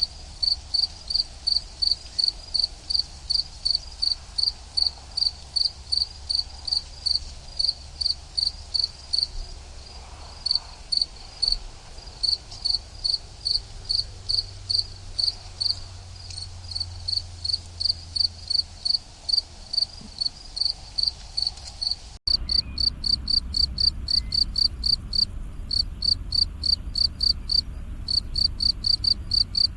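Crickets chirping in a steady, even rhythm, about two to three high chirps a second. About two-thirds of the way through it cuts abruptly to another cricket recording with faster, denser chirping.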